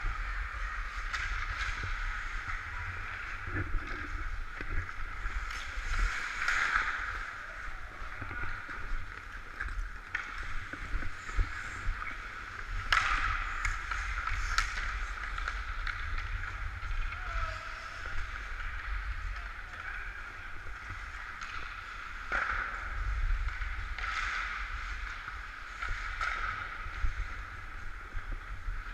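Hockey skates scraping and carving on the ice, heard from a camera worn by a skating player, over a steady low rumble of motion. A few sharp clacks of stick and puck cut through, the loudest about 13 seconds in and again about 22 seconds in.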